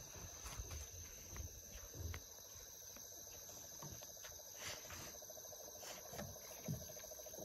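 Night-time insect chorus: a steady high-pitched buzz, with a few faint knocks.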